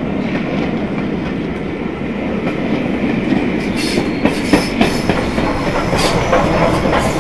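A passenger train passing close by, its coach wheels clattering over the rail joints. In the second half the steam locomotive 34067 Tangmere rolls past close, and the sharp wheel clicks get louder.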